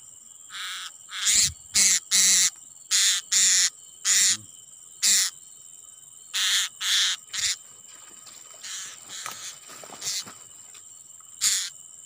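Blue-crowned hanging parrot giving short, shrill, harsh calls in irregular runs, over a steady high drone of insects.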